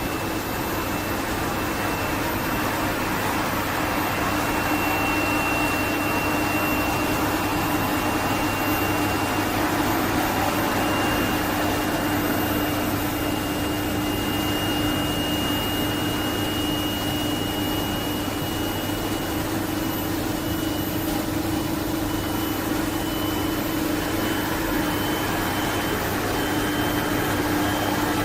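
A machine motor running steadily with a constant hum and whirring, and a faint high whine that slowly rises in pitch.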